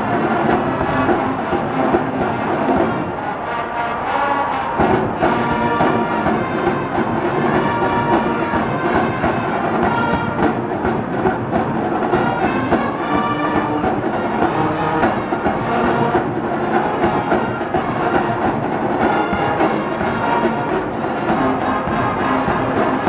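College marching band playing a brass tune with drums, sousaphones and horns carrying sustained notes over a steady beat.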